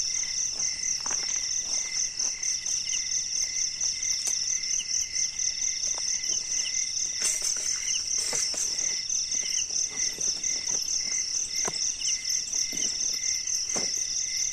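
Night insects, crickets among them, chirping in a steady pulsing chorus, several layers at different pitches. A few light knocks of camp gear being handled are scattered through it.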